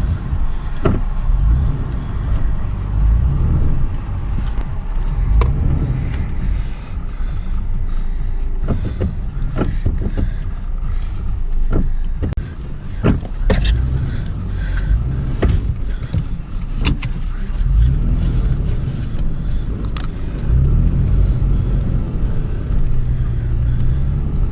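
2013 Toyota 4Runner SR5's 4.0-litre V6 driving off-road on sand: a steady low engine and drivetrain rumble, with scattered sharp knocks and rattles.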